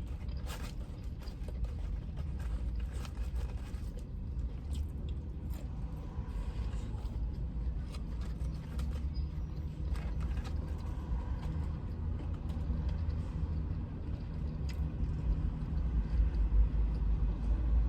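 Close-up chewing and biting with small mouth clicks, over a steady low rumble of a vehicle, heard inside a truck cab.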